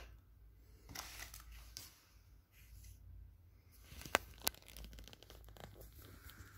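Faint rustling of paper and plastic bags as they are handled and set down, then two sharp clicks about four seconds in.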